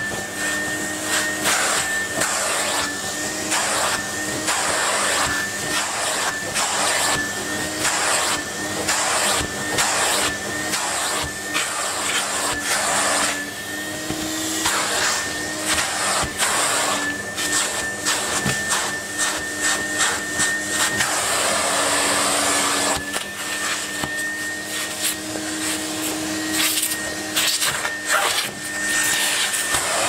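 Numatic tub vacuum cleaner running with a steady motor whine and rush of air as its nozzle is pressed and dragged over a cloth filter to suck out the dust. The airflow keeps briefly changing as the nozzle seals against the cloth and lifts off.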